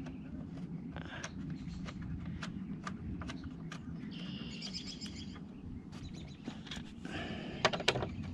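Scattered clicks and knocks of hand tools and metal parts inside a car door as the door latch is bolted back in, over a steady low hum. There is a brief run of rapid clicking about four seconds in and a louder cluster of clicks near the end.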